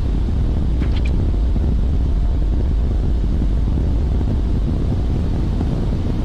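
Steady low rumble of running industrial plant machinery, such as chiller and pump equipment, with a brief faint squeak about a second in.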